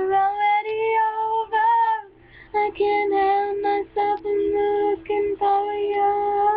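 A girl singing unaccompanied in long, held notes broken by short breaks for breath; her voice is affected by a cold and allergies.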